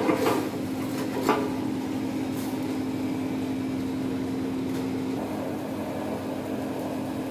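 Pasta being tossed in an aluminium sauté pan over a high gas flame: a steady rushing noise with a low hum that stops about five seconds in, and a few clanks and scrapes of the pan in the first couple of seconds.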